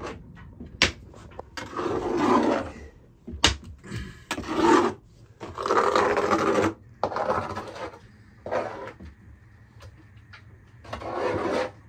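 Repeated hand scraping strokes, each about half a second to a second long, with a few sharp clicks or knocks between them.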